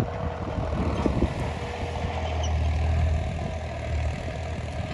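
Diesel farm tractor running steadily while pulling a disc harrow across the field, a low engine drone that swells slightly partway through.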